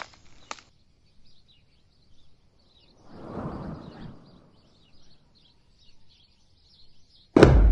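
Faint, high bird chirps repeating again and again in the woods, with a soft rush of noise about three seconds in. Near the end a sudden loud bang breaks in and carries on as a low rumble.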